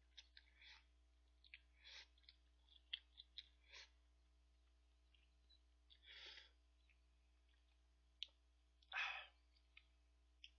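A person slurping and chewing instant cup ramyeon noodles close to a microphone: a series of short slurps and wet mouth clicks, with the loudest and longest burst about nine seconds in.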